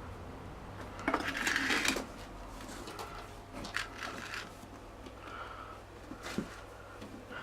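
Handling noise of a motorcycle inner tube and tyre being worked onto the wheel rim: a louder scrape of about a second, about a second in, then scattered light clicks and clinks.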